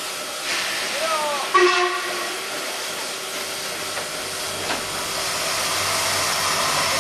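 Škoda class 498.1 'Albatros' three-cylinder express steam locomotive standing with steam hissing steadily. A brief loud sound comes about a second and a half in, and a low rumble joins the hiss in the second half.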